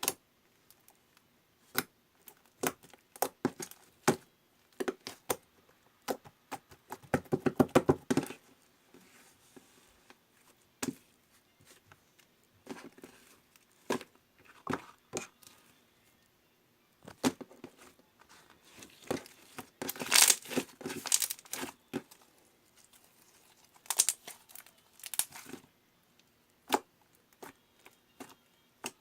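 Slime being squeezed, poked and stretched by hand, giving irregular sharp clicks and pops. There are short bursts of dense crackling about seven to eight seconds in and again around twenty seconds.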